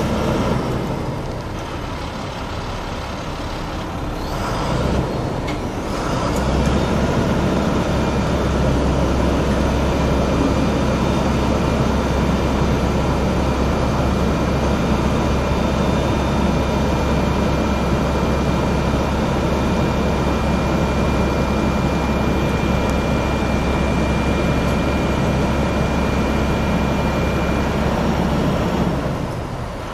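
Truck's 7.6 L International DT466 six-cylinder diesel running while the hydraulic aerial boom is operated. It gets louder about six seconds in, holds steady with a faint high whine over it, and drops back just before the end.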